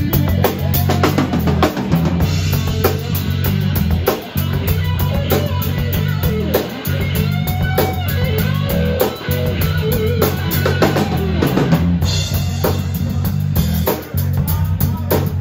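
Live rock band playing loud: electric guitar over a drum kit and bass.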